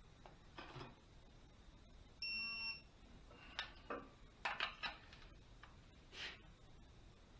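Digital torque-angle wrench on an EJ251 head bolt beeping once, a single high electronic beep about half a second long, a little past two seconds in: the signal that the bolt has reached its target angle in the final 90-degree tightening. Several short creaks and clicks come from the wrench and bolt as they are turned, the sharpest cluster about halfway through.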